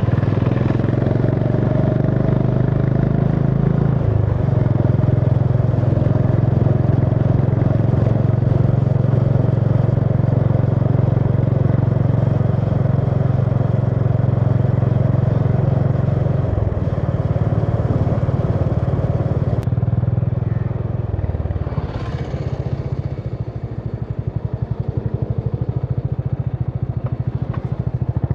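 Honda CB350 H'ness single-cylinder engine and exhaust heard from the rider's seat, running steadily at cruising revs. About two-thirds of the way through the revs fall off as the bike slows, and the separate exhaust pulses of the low-revving single become audible.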